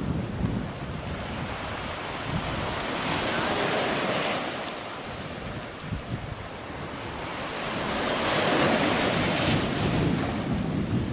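Sea surf washing up the sand and around the rocks of a breakwater, swelling in a wash about four seconds in and again, louder, from about eight seconds, with wind buffeting the microphone.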